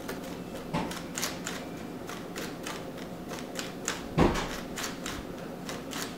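Quick irregular crinkling and clicking from a plastic bag rubbing against a cake turntable as it is turned, with two louder knocks about a second in and about four seconds in. The noise is easy to mistake for a worn turntable wheel; it comes from the bag.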